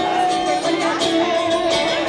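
Live rock band playing an instrumental passage: electric guitar and strummed acoustic guitar over drums, with steady drum and cymbal hits.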